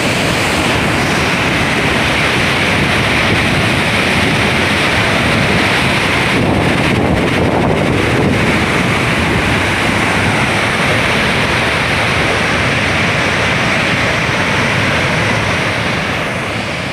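Loud, steady rushing noise that starts to fade about a second before the end.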